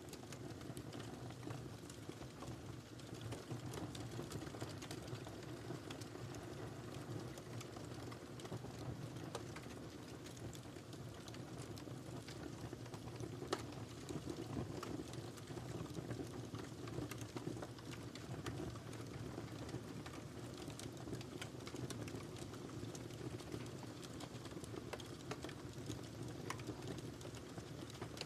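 Wood fire crackling in a fireplace: a steady low rumble of burning with many small, sharp pops and snaps at irregular intervals, one louder pop about halfway through.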